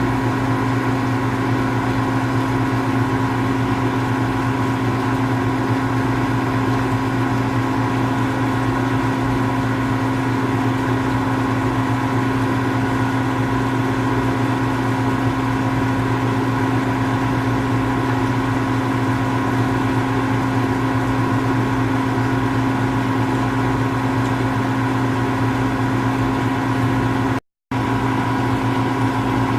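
Steady machine hum with a few fixed tones, unchanging, broken once by a sudden split-second dropout near the end.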